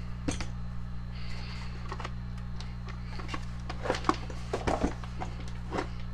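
Scattered clicks and knocks of the chainsaw's hard plastic clamshell housing being handled and turned over on a workbench, with a cordless drill set down, over a steady low hum. There is one knock just after the start and a cluster of them about four to five seconds in.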